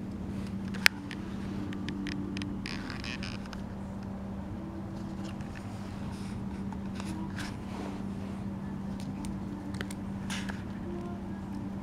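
Stiff paper cone rustling, scraping and clicking as a kitten paws and rolls against it, with a sharp click about a second in, over a steady low hum.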